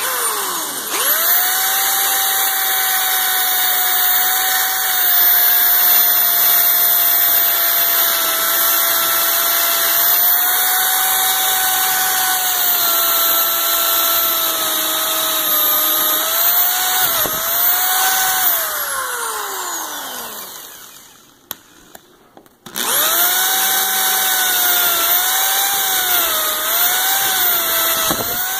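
Electric drill boring into a wooden truss with a long twist bit. The motor whines steadily, its pitch dipping as the bit bites into the wood. About 19 seconds in it winds down and stops, then starts up again after a short pause and keeps drilling with a wavering pitch.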